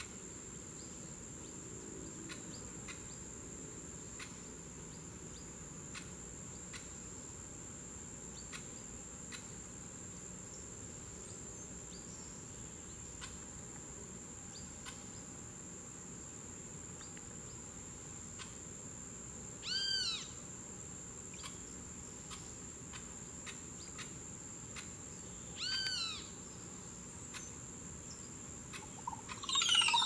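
Crested oropendola calling: two short arching calls about six seconds apart, then near the end a louder, quick run of notes falling in pitch. A steady high-pitched insect drone runs underneath.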